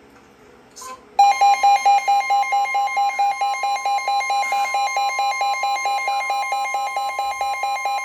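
Weather alert app on a phone sounding its alarm for a special marine warning: a short click, then just over a second in a loud two-tone alarm starts, one tone steady and the other beeping about five times a second.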